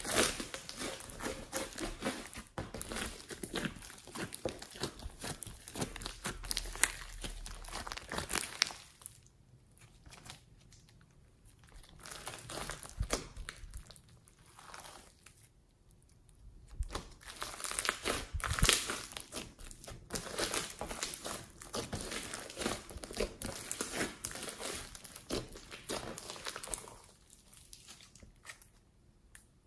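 Green slime mixed with foam beads being kneaded, pressed flat and stretched by hand: dense runs of sticky crackling and popping, with a few quieter pauses between handlings.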